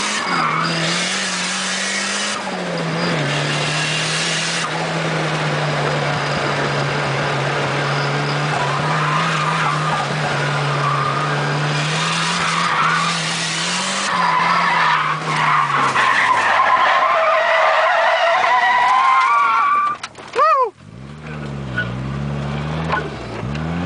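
Nissan 240SX's turbocharged engine held at steady high revs through a drift, heard from inside the cabin, with tyres squealing and skidding. Near the end the revs fall away, the sound dips suddenly, and the engine is then blipped up and down.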